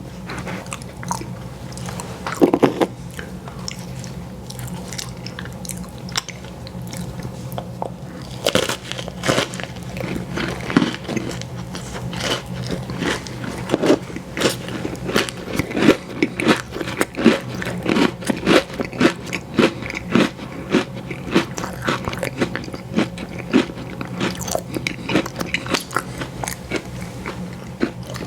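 Close-miked biting and chewing of an ice cream sandwich: crunchy, wet chewing in a quick, uneven rhythm that grows busier from about eight seconds in. A low steady hum runs underneath.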